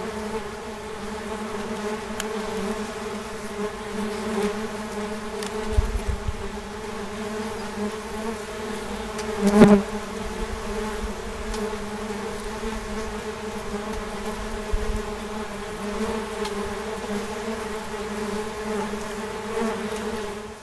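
Wasps buzzing in flight, a steady hum with one wasp passing close and louder about ten seconds in.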